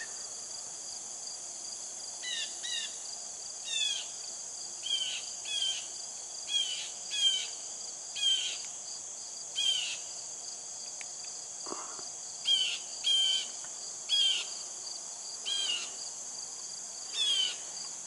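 A steady, high-pitched late-summer insect chorus. Over it, a bird repeats a short falling chirp, often in pairs, starting about two seconds in, with a short pause near the middle.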